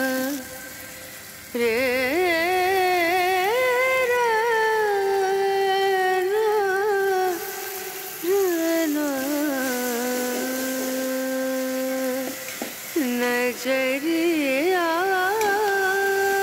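Background music: a single voice humming a slow melody, sliding between notes and holding long wavering notes, with a short break just after the start and another about eight seconds in.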